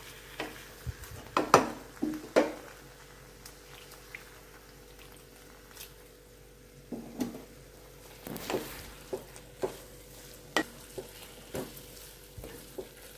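Spatula stirring and mashing a thick potato masala in a kadai, with irregular scrapes and knocks against the pan over a faint sizzle.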